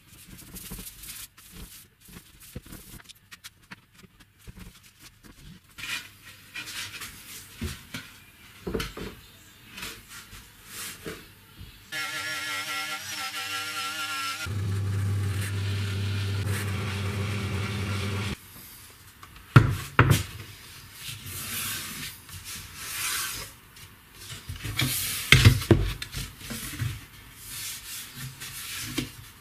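Hand work at a workbench: irregular rubbing and scraping with clicks, then a steady machine-like hum for about six seconds in the middle, followed by several sharp knocks.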